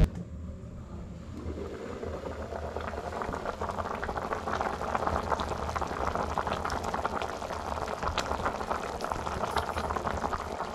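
Food cooking in a pot over a wood-fired chulha: a dense bubbling crackle that builds over the first couple of seconds, then stays steady.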